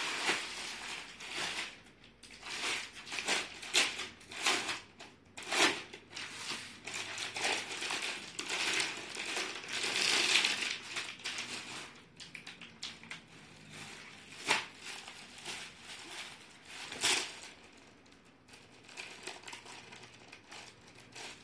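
Irregular rustling and crinkling as a salwar suit's cloth and its packaging are handled and unfolded, with a few sharper crackles in the second half.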